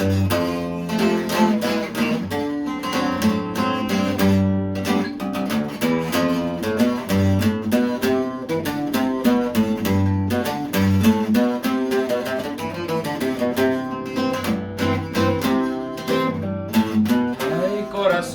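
Handmade bajo sexto with a walnut body and European spruce top, picked and strummed in a norteño song introduction: low bass runs under ringing chords.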